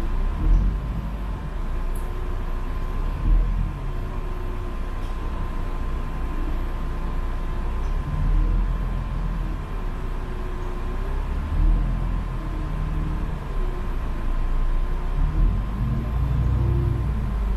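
A public transport vehicle running, heard from inside the passenger cabin: a steady low rumble with a few louder bumps and a constant high tone, plus a lower whine that comes and goes every few seconds.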